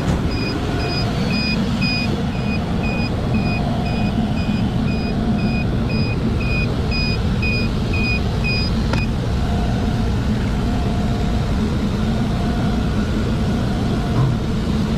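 Steady machinery hum with a high electronic beep repeating about twice a second, which stops with a click about nine seconds in. The beeping sounds just after the 380 V pump circuit shorted and tripped.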